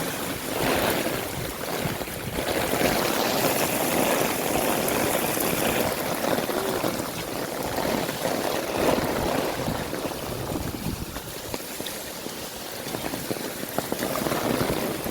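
Heavy rain falling, a dense steady hiss of rain with running water that swells and eases.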